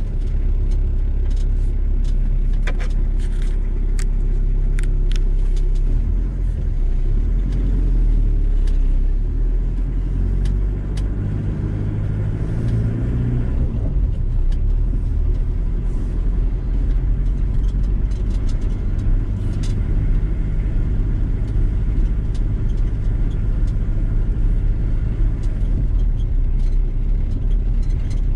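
VW T4 campervan driving: a steady low engine and road rumble. The engine note shifts about six seconds in and again around twelve to fourteen seconds, with a few light clicks in between.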